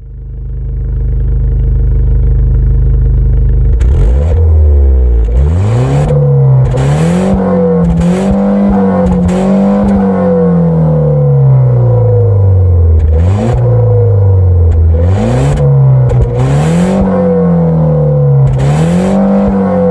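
Citroën DS3 1.6 THP turbocharged four-cylinder petrol engine through its stock exhaust. It idles steadily for about four seconds, then is revved up and down repeatedly. In the middle one rev is held longer and slowly falls back.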